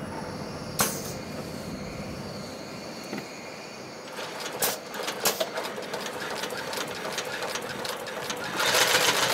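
Long-arm heavy-duty twin-needle industrial sewing machine stitching thick material. Its motor hums steadily with a sharp click about a second in, then from about four seconds in the needles stitch in a fast rapid rhythm that is loudest near the end.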